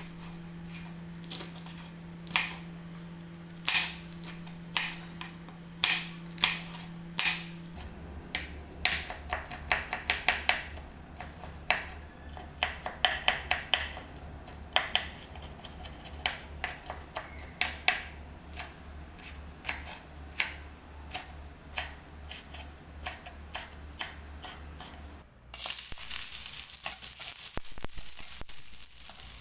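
A chef's knife slicing chillies on a wooden chopping board, each cut ending in a sharp knock on the board. Then faster, steady chopping of garlic at about two to three strikes a second. About four seconds from the end, garlic and scallions start sizzling in a hot wok.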